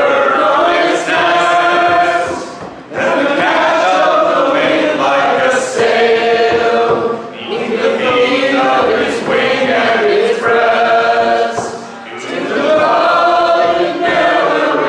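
Three voices, two women and a man, singing a song a cappella in phrases of about four seconds with short breaks between.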